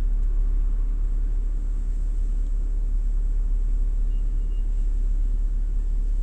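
Steady low rumble, with a faint short high beep about four seconds in.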